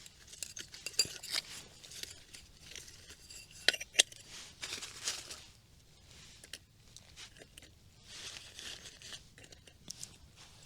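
Tearing and crinkling of a Spam Single's foil pouch being opened, with scattered small clicks and clinks of metal cookware being handled.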